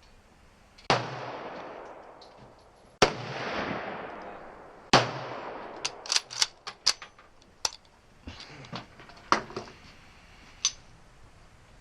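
Three gunshots about two seconds apart, each followed by a long fading echo, then a run of shorter, sharp cracks and clicks over the next five seconds.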